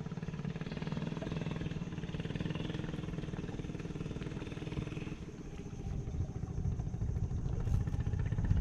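Small engine running with a steady, even hum, growing louder over the last few seconds.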